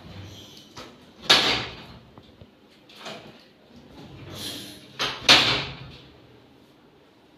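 Two loud sudden thuds during a chiropractic adjustment, each followed by a brief rustle. The first comes about a second in and the second, a quick double, about four seconds later.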